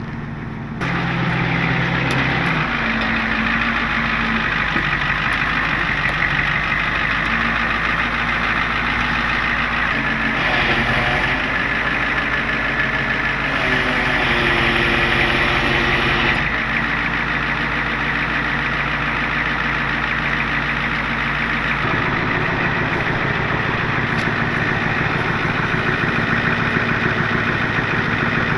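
Tow truck engine running steadily at idle, with a little change in tone in a few places.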